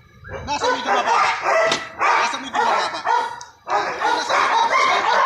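A dog barking and yapping repeatedly in quick runs, with a short break about three and a half seconds in.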